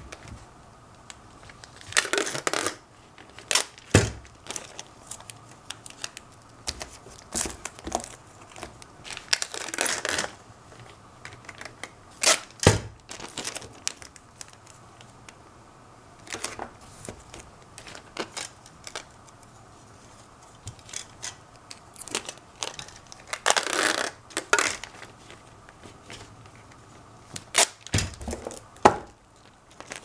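Clear 3M shipping tape being pulled off the roll in three long strips, about a second each, with short clicks and knocks from the tape dispenser and the box being handled in between.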